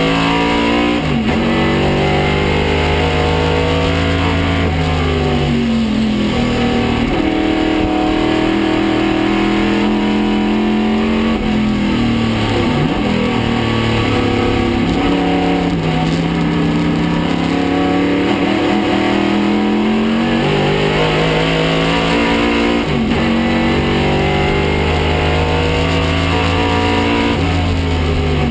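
A Camaro Trans-Am race car's 302 cubic-inch V8 at full racing effort, heard from inside the cockpit. It climbs in pitch under acceleration and drops sharply on braking and downshifts, several times over.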